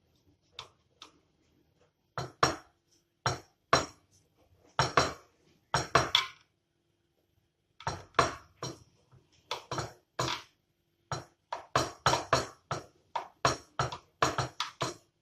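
Kitchen knife cutting slices off a frozen chocolate ice-cream log: a run of sharp knocks, often two close together, at about one cut a second with short pauses between.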